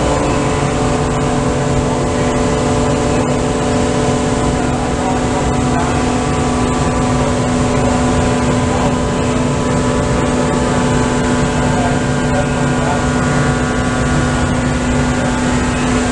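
Magerle CNC surface grinder running: a steady machine hum with several constant tones over an even rushing noise, unchanging throughout.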